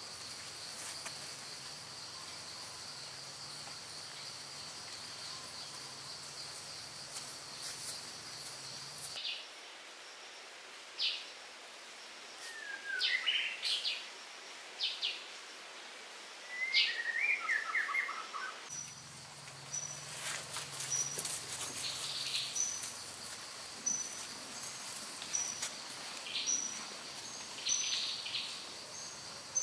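Outdoor ambience: insects chirring steadily, with short bird chirps and whistles. The background changes abruptly twice, once about a third of the way in and again past the middle.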